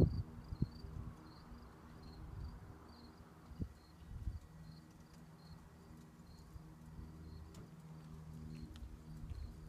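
Diamond DA20-C1 Katana's piston engine running steadily at low power with its propeller turning, heard faintly as a low hum with a light rhythmic tick, during a ground run-up after an oil change.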